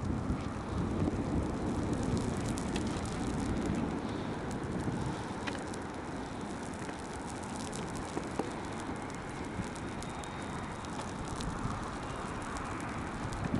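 Steady outdoor hiss of a thunderstorm's wind and dripping rain, with scattered faint ticks of drops.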